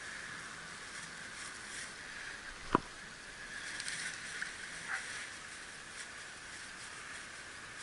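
Hand-thrown balls of groundbait plopping into still river water: one sharp plop about three seconds in and a fainter one about two seconds later.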